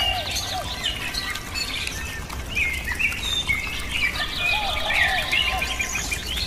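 Many birds chirping and calling over one another in quick short notes and trills, with a few lower arching calls, over a steady low hum.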